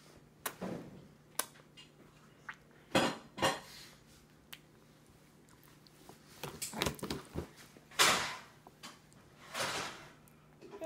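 A toddler's hands slapping and sweeping across a plastic high-chair tray strewn with spaghetti: irregular taps and knocks with a few short scraping swipes, the loudest about three seconds and eight seconds in.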